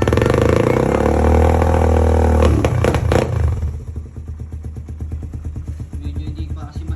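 Engine running through a Smok power pipe exhaust: revved and held high for about two and a half seconds, blipped twice, then dropping to a steady idle.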